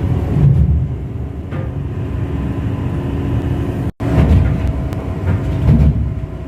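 Loud, uneven low rumble with a faint steady hum, dropping out for an instant about four seconds in.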